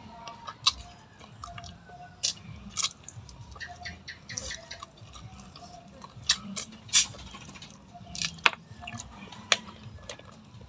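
A person chewing food close to the microphone, with irregular crisp crunches and wet clicks.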